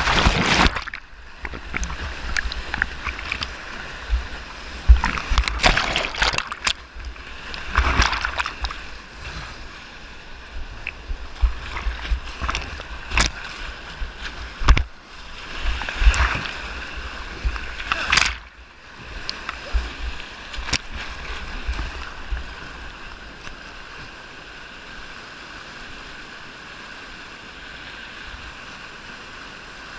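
Kayak on a whitewater river: rushing water with irregular loud splashes and knocks through the first two-thirds, settling to a steady rush near the end.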